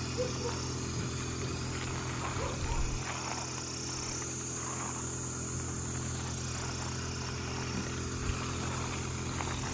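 A steady low mechanical hum, with an even high insect drone from crickets or cicadas over it.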